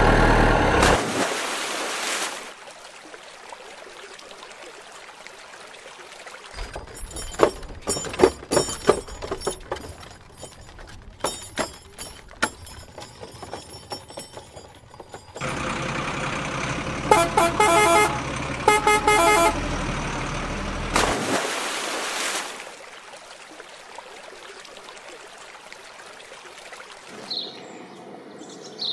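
A vehicle horn sounds at the very start and again as a run of short toots in the middle. Between them is a stretch of irregular clicks and knocks.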